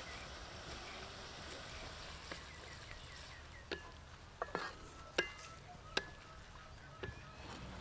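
Sliced pig stomach stir-frying in a wok with a steady sizzle. In the second half a wooden spatula knocks against the pan about half a dozen times, each knock ringing briefly.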